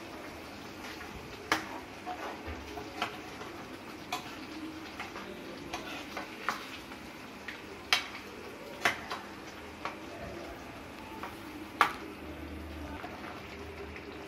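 Stainless-steel ladle stirring a thick simmering vegetable gravy in a non-stick kadai: about ten irregular sharp clinks of the ladle against the pan over a steady low sizzle of the cooking masala.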